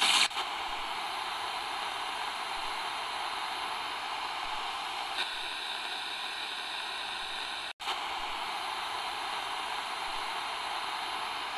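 Steady static-like hiss that cuts out for an instant about eight seconds in.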